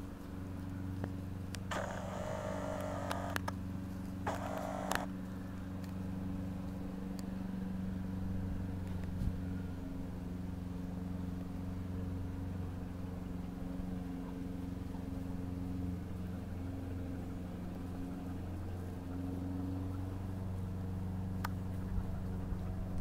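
Steady low mechanical hum from a running motor, with two short rushes of noise about two and four seconds in and a few faint clicks.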